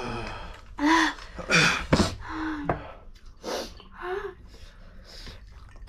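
Sharp gasps and hissing breaths, mixed with a few short vocal sounds, from people eating very spicy noodles: a reaction to the chili heat.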